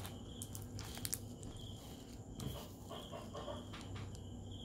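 Faint rustling and a few light clicks from a small plastic candy wrapper being handled, over a low steady hum.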